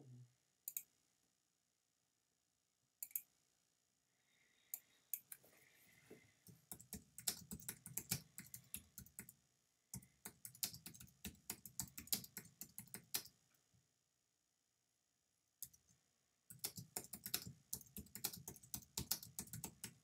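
Typing on a computer keyboard: a few single clicks, then a long run of rapid keystrokes, a pause of about three seconds, and another run near the end.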